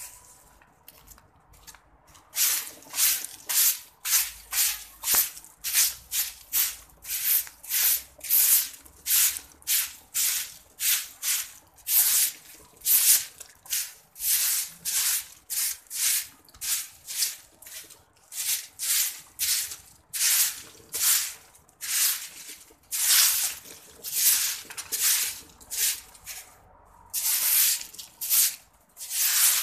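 A broom sweeping a concrete floor in quick, repeated swishing strokes, about two a second, starting about two seconds in, with a short pause near the end.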